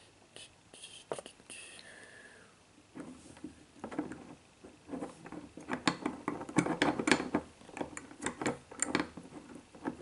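Small brass padlock being handled in the fingers close to the microphone: scattered clicks and scraping, becoming a busy run of sharp clicks, taps and rubbing about three seconds in.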